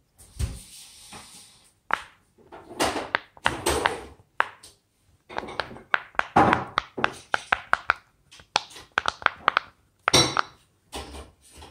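A silicone pop-it fidget toy being pressed, its bubbles popping one after another in quick runs of sharp clicks with short pauses between.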